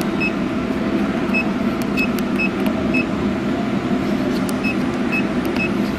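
Short electronic key beeps from a CNC plasma controller's keypad, one for each key pressed, about a dozen at irregular spacing, over a steady machine hum.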